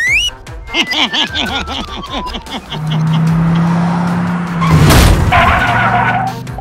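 Background music with comic sound effects laid over it: a stepped falling tone, a steady low tone, and a sharp crash about five seconds in.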